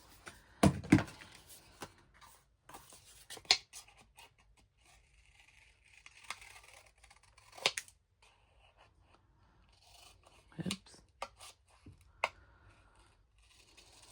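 Scissors snipping through paper, a handful of irregular cuts with paper rustling between them.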